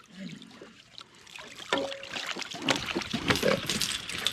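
Water splashing and dripping, with clicks and knocks starting about two seconds in, as a catfish is lifted out of the water at the side of a boat.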